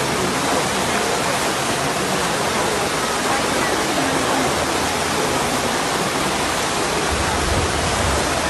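Muddy flash-flood torrent rushing through a street channel, a steady, loud churning of water. A deeper low rumble strengthens near the end.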